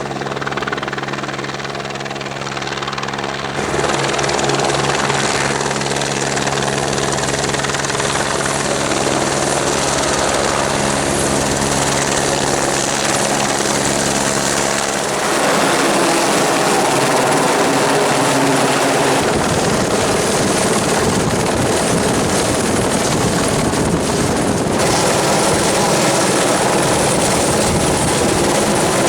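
Helicopter running: a dense, steady rotor and engine noise with a rapid pulsing underneath. It grows louder about four seconds in and changes character again about halfway through.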